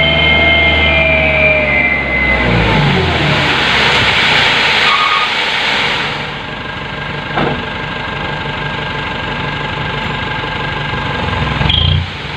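Sand-loaded dump truck's engine revving and working hard, its pitch rising and falling in the first few seconds, then settling to a steadier, lower run about halfway through.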